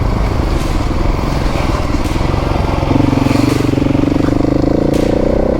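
Adventure motorcycle engine running under throttle while riding a dirt track, its note getting louder and steadier about halfway through.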